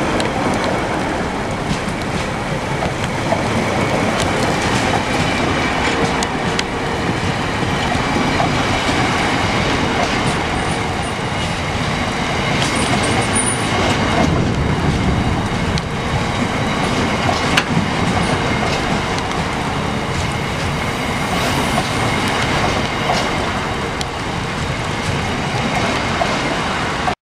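Train rolling past close by, a dead-in-tow Class 197 diesel unit followed by hopper wagons: a steady rush of wheels on the rails with scattered knocks. The sound cuts off suddenly near the end.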